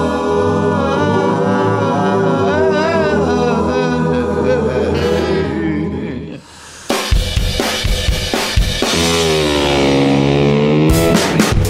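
Rock 'n' roll track intro: a held chord with wavering pitch for about six seconds, then after a brief dip the drums come in under a long note that slides down and back up in pitch. A quick drum fill near the end leads into the full beat.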